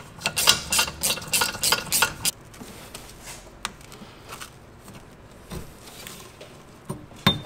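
A small hand tool clicking rapidly as the 7 mm worm-gear hose clamp on a fuel filler pipe is loosened, then quieter rubbing and scattered clicks as the rubber filler hose is worked loose, with one sharp click near the end.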